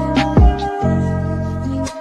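Background music: deep bass notes and heavy drum hits under sustained chords, with the bass dropping out near the end.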